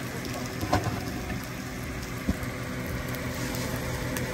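Hash browns and sausages sizzling on an electric griddle over a steady low hum, with two light clicks about a second and two seconds in.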